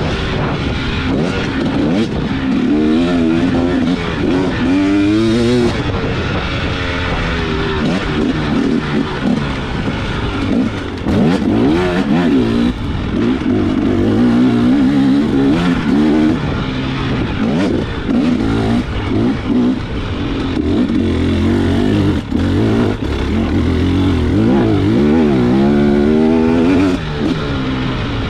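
Enduro dirt bike engine revving up and down as it is ridden hard, its pitch rising and falling again and again through acceleration and gear changes, with scattered knocks.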